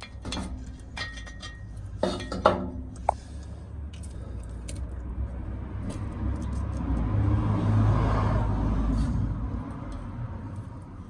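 Scattered metallic clinks and knocks of hand tools and exhaust hardware being handled under a car, with a louder clatter about two seconds in. Midway, the sound of a passing vehicle swells and fades.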